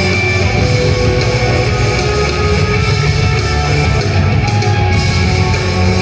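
Loud instrumental rock played live on electric guitar and keyboards, with no vocals.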